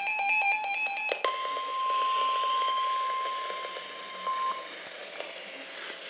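NOAA weather alert radios sounding a severe thunderstorm warning: overlapping alarm beeps from several receivers stop about a second in, then a steady single-pitch warning alert tone holds for about three and a half seconds and stops.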